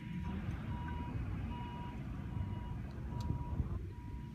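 Vehicle reversing alarm beeping about five times, at one steady pitch and a little under a second apart, over a low rumble.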